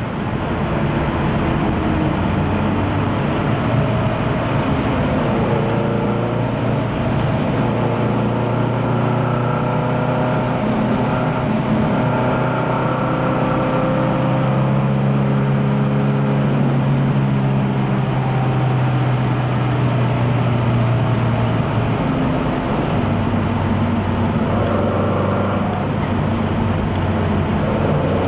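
Alfa Romeo Giulia's four-cylinder twin-cam engine heard from inside the race car, running hard under load. Its pitch shifts slowly and drops about three quarters of the way through.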